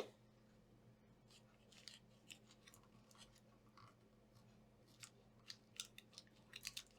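Faint scratching strokes and small clicks as a circuit board is scrubbed clean with alcohol after soldering. There is a sharp click at the start, and the strokes come more often near the end.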